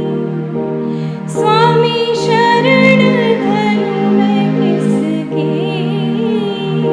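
Slow, gentle background music: sustained low chords, with a vibrato melody coming in about a second and a half in.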